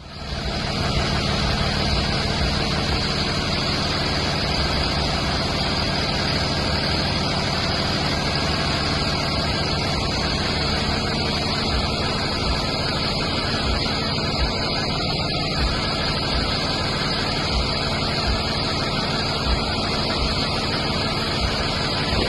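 School bus engine idling steadily, with a constant hiss over a low hum.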